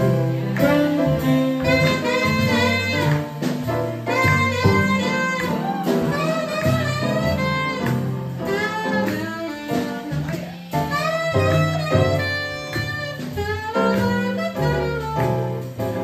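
Swing jazz played by a live band: a wavering lead melody over piano, a bass line moving note by note, and a steady beat.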